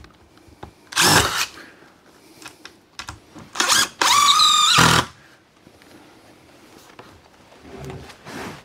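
Cordless drill driving screws into the boards of a built-up wooden door header: a short run about a second in, a brief one a little later, then a longer run of about a second.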